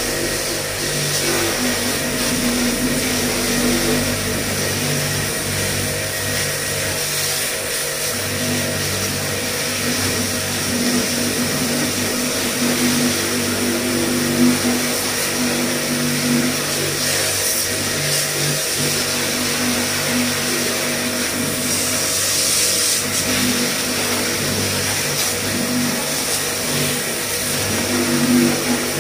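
Starq W3A electric pressure washer running steadily, its motor and pump humming while the water jet hisses against a car tyre and wheel.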